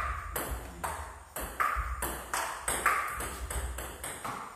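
A table tennis rally: the celluloid ball clicks off paddles and pings on the table, about two sharp hits a second, each with a short ring.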